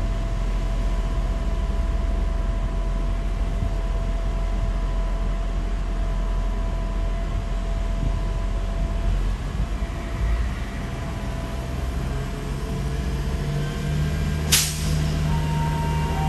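SA136 diesel multiple unit idling with a steady drone, its engine note rising as it starts to move off. A short, sharp hiss of air comes near the end.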